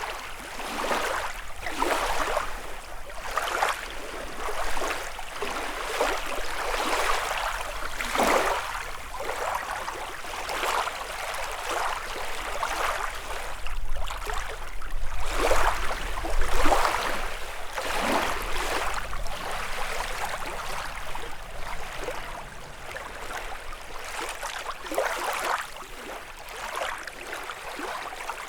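Small lake waves lapping and splashing against the shore, a soft wash every second or two.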